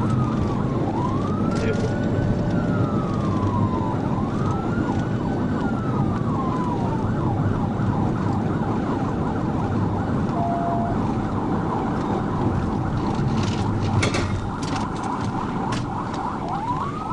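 Police car siren from the pursuing patrol car: slow rising-and-falling wail cycles, switching to a fast yelp about four seconds in and back to a wail near the end. It sounds over the steady rumble of the car's engine, tyres and wind at highway speed. A few sharp clicks come near the end.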